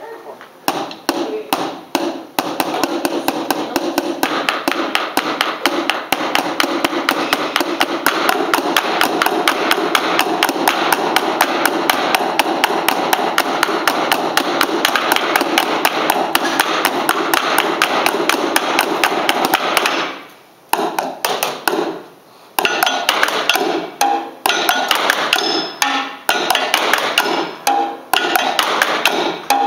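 Drumsticks beating on upturned metal-framed chairs in an improvised percussion ensemble. A fast, dense stream of strikes breaks off twice briefly about two-thirds of the way through, then goes on as sparser rhythmic hits with some ringing metal tones.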